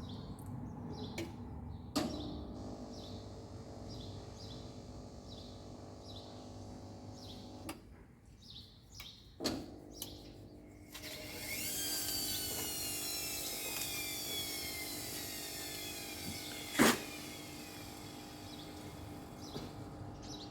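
Whirlpool washing machine's belt-drive carbon-brush wash motor starting a direct spin: a steady hum broken by a few sharp clicks, then from about eleven seconds a whine rising in pitch as the drum speeds up toward high spin.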